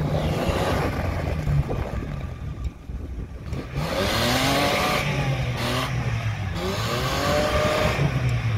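SUV engine revving hard while its tyres spin in deep snow, stuck against a snow berm. From about four seconds in, the revs rise and fall several times over a rushing hiss of spinning tyres and flying snow.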